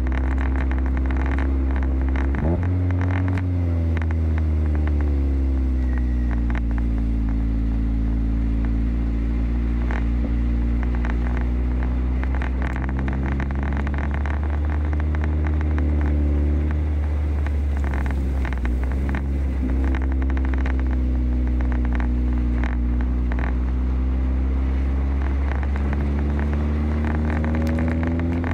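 Car engine running steadily under way on a snow-covered road, heard from inside the car. Its note jumps about two and a half seconds in, settles lower over the next few seconds, and dips and rises again about two-thirds of the way through as the revs change. Over it is steady tyre noise with scattered crackling from the tyres on packed snow.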